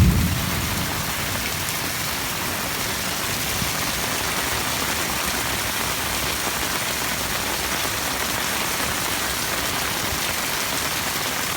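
Heavy rain falling and splattering on surfaces, a steady dense hiss.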